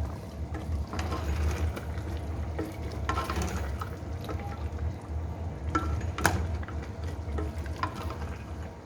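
Wet stirring or mixing sounds with scattered light clicks over a steady low hum.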